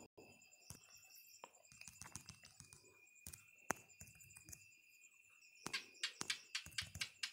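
Faint, scattered taps and clicks of fingers typing on a phone's touchscreen keyboard, coming in a quicker run near the end.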